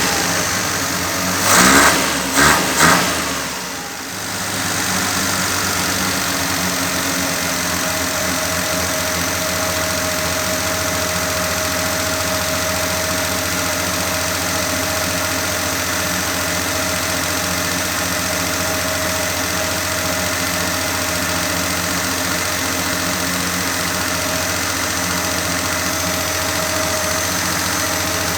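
Car engine idling steadily, with three short loud sounds about two seconds in and a brief drop in level just after.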